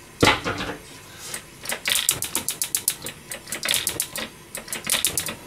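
Metal cookware on a gas stove: a sharp knock, then a rapid, irregular run of sharp metallic clicks and taps lasting about four seconds.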